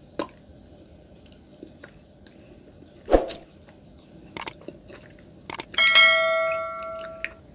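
Faint chewing clicks of edible clay, a single thump about three seconds in, then near the end a bright bell chime that rings out and fades over about a second and a half: the notification-bell sound effect of a subscribe-button animation.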